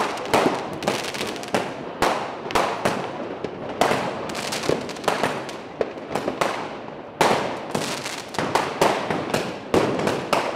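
New Year's fireworks and firecrackers going off all around: many sharp bangs and cracks overlapping, several a second, each with a short echo. A denser run of louder bangs starts about seven seconds in.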